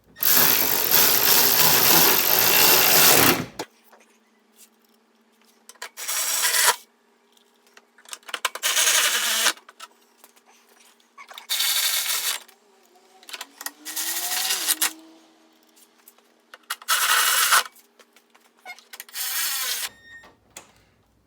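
A handheld power tool run in bursts: one long run of about three and a half seconds at the start, then several shorter runs of about a second each with pauses between.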